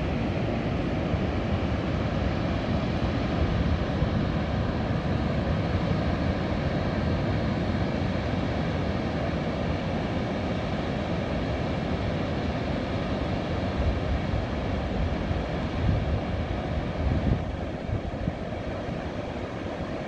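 Wind rumbling on the microphone over a steady wash of ocean surf, with a few stronger gusts near the end.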